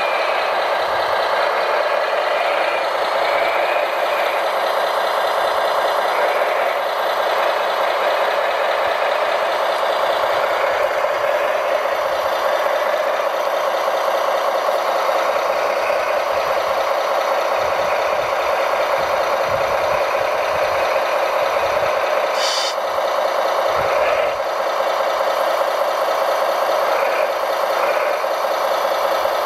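Radio-controlled scale model construction machines running: a model wheel loader's drive and hydraulics working steadily as it handles rock, with a short high hiss about three-quarters of the way through.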